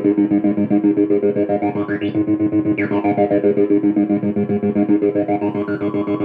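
Stansi noise synth playing a rapidly pulsing, pitched drone, about nine pulses a second. A filter-like brightness sweeps up and down through it every second or two.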